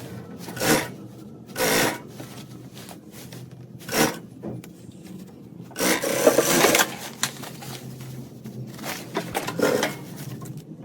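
Rubbing and scraping handling sounds in short bursts, a longer one about six seconds in.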